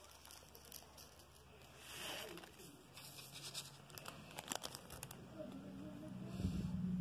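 Plastic crinkling with scattered small clicks and crackles, thickest about two seconds in and again past four seconds. From about five and a half seconds a steady low hum comes in and grows louder near the end.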